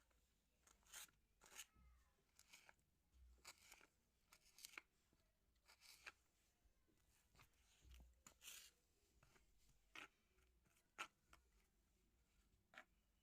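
Faint, irregular crisp scrapes, crunches and taps of kitchen food preparation, about a dozen short strokes at uneven intervals.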